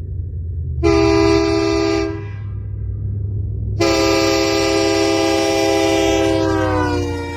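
Locomotive air horn sounding a chord in two blasts, a short one about a second in and a longer one of about three seconds. Near the end of the long blast the chord sags in pitch and fades as the air is shut off.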